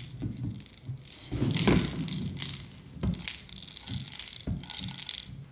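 A small dog knocking a hollow rubber treat toy about on a tile floor: scattered knocks and scrapes of the toy and the dog's claws on the tile, the loudest about one and a half seconds in and again about three seconds in.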